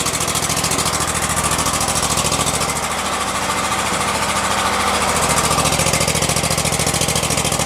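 27 hp Kohler V-twin engine of an Exmark Lazer Z zero-turn mower idling steadily, running at idle again on a newly fitted carburetor.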